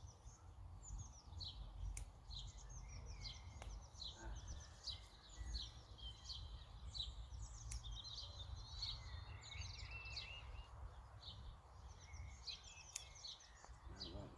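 Faint songbirds chirping and trilling in many short, quick notes, over a steady low rumble, with a few sharp clicks.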